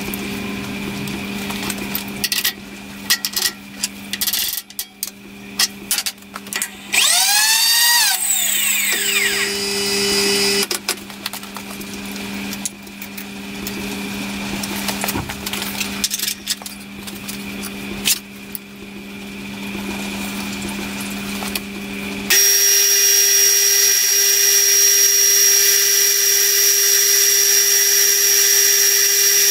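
Scattered clicks and knocks over a steady low hum. About two-thirds of the way through, a small milling machine's spindle comes in abruptly and runs loud with a steady high-pitched whine as a 2 mm end mill is brought down to cut a screwdriver slot in a screw head.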